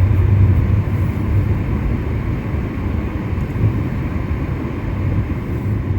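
Steady low rumble of a car being driven, engine and road noise.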